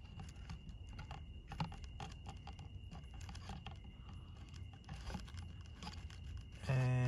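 Irregular light clicks and taps of hands handling a new oil filter while its gasket is oiled.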